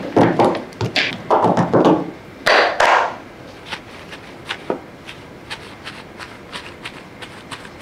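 Raw potato sticks dropping onto paper towels in a quick run of soft thuds for about three seconds, then a folded paper towel dabbing the sticks dry in a string of light, quieter pats.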